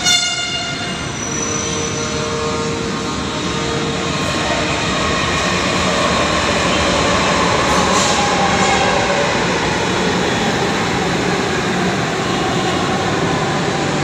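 Manila LRT Line 1 third-generation (3G) light rail train giving a short horn blast right at the start, then running into the station past the platform. Its rolling noise grows louder until the cars are alongside, about halfway through, and then holds steady.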